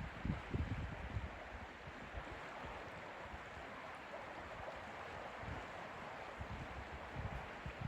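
Lake water lapping and rippling in a steady wash, with gusts of wind rumbling on the microphone, strongest about a second in and again near the end.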